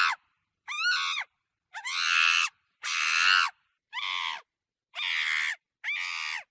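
Monkey giving a series of about seven high-pitched calls, each under a second long, with short silent gaps between them.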